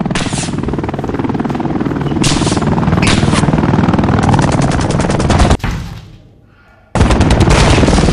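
Recorded machine-gun fire: a dense, rapid run of shots that cuts off suddenly about five and a half seconds in and starts again about a second later.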